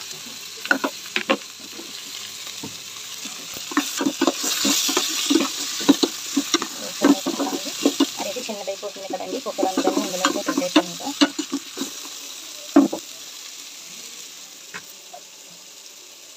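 Vegetables sizzling in hot oil in a metal pot while a steel ladle stirs them, clinking and scraping against the pot. The clinks stop about thirteen seconds in, leaving only the sizzle.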